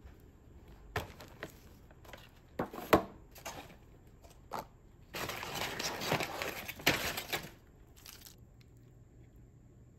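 Plastic takeout packaging being unpacked: sharp clicks and knocks of clear plastic containers and sauce-cup lids set down and handled, the loudest about three seconds in, and a plastic bag crinkling for a couple of seconds past the middle.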